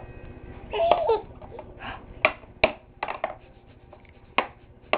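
A baby makes a short vocal sound, then a series of sharp, irregular slaps on the plastic tray of her activity seat.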